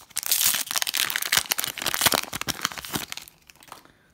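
Foil Pokémon booster pack wrapper crinkling as it is torn open by hand; the dense crackle stops about three seconds in.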